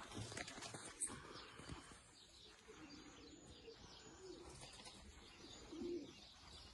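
Racing pigeons cooing faintly, a few soft low coos.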